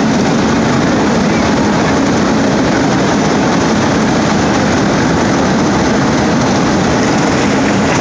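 Loud, steady drone of small racing engines running, with no distinct changes.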